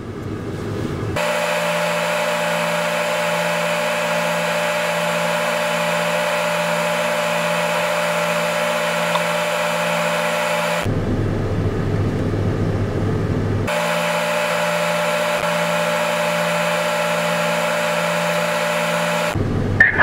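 Steady high whine of the hydraulics folding a Capello corn head on a Gleaner S97 combine, heard from inside the cab. It stops for about three seconds midway, leaving a lower rumble, then starts again until just before the end.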